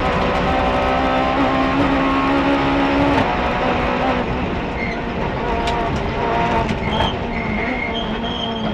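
Rally car engine at high speed, heard from inside the cockpit over tyre and road noise: the revs climb in fifth gear, drop sharply at an upshift to sixth about three seconds in, then hold steady at speed.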